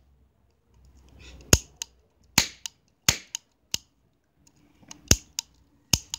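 Toy cap gun firing five sharp cracks, irregularly spaced, with fainter clicks in between.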